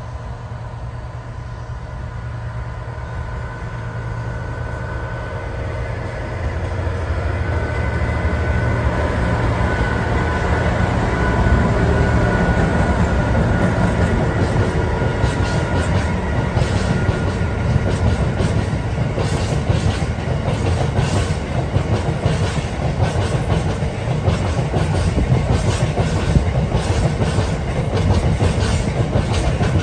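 GBRf Class 69 diesel locomotive, with its Class 66-type EMD two-stroke diesel engine, approaching and passing, its engine drone growing louder over the first dozen seconds. Then a train of freight wagons rolls by, its wheels making a regular clickety-clack over the rail joints.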